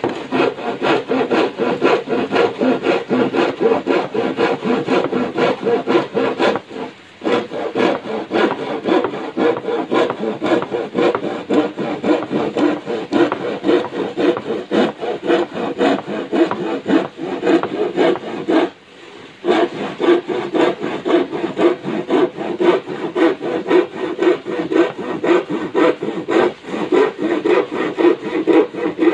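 Hand panel saw cutting through a thin plywood sheet in quick, steady back-and-forth strokes, the teeth rasping through the wood, with two brief pauses, about seven seconds in and just past halfway.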